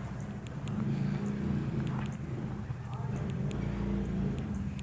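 Small four-stroke engine of a Coolster 110 youth ATV running with a steady low hum.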